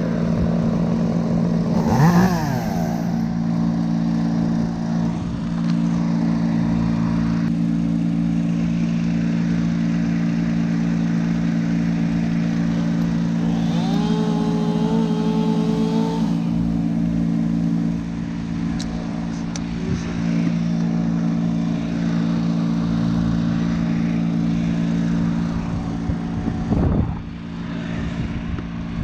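A machine engine running steadily at a constant speed. About two seconds in there is a short slide in pitch, and around the middle a brief held tone.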